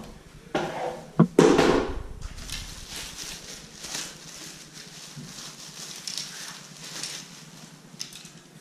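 A fishing rod pulled out of a cardboard shipping tube, with a few loud knocks and scrapes in the first two seconds, then a thin plastic sleeve crinkling and rustling as it is stripped off the rod.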